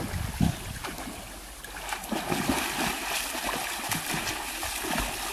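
Water splashing and sloshing as people swim and wade, with a swimmer's strokes churning the surface in the second half.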